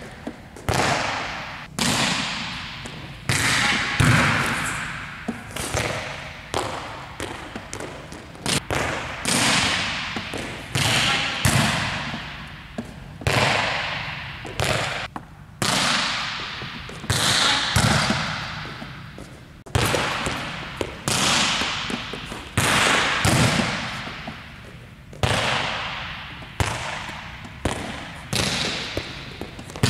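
Volleyballs being struck over and over in a drill, a sharp slap about once a second, each ringing out in a long echo off the gym walls.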